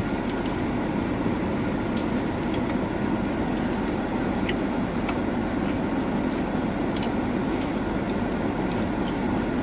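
Steady rumbling hum of a car's idling engine and air-conditioning fan heard inside the cabin, with a few light clicks.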